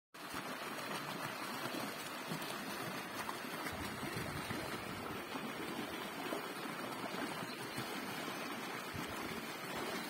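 Shallow creek rushing over stones in a small riffle: a steady babble of flowing water.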